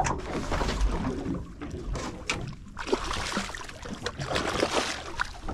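Water splashing and sloshing at the side of a small boat as a long-handled landing net is dipped in under a hooked pink snapper, with a few sharp knocks along the way.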